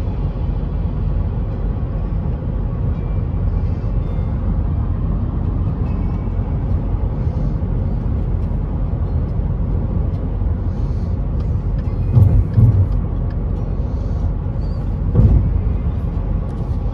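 Road noise inside a vehicle's cabin at highway speed: a steady low rumble from the tyres and engine. Two short thumps come a little after two-thirds of the way through, and one more near the end.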